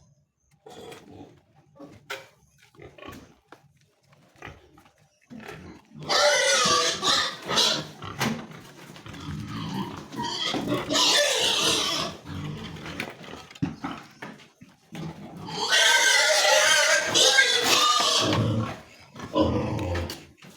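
Pigs calling loudly in two long stretches, starting about six seconds in and again about fifteen seconds in, after a few seconds of faint knocks.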